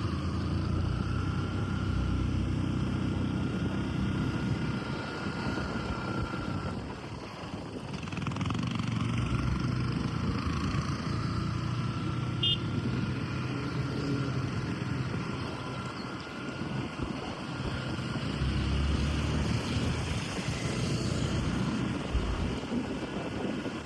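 A moving vehicle on the road: steady engine and road noise, with a faint whine that wavers slightly in pitch.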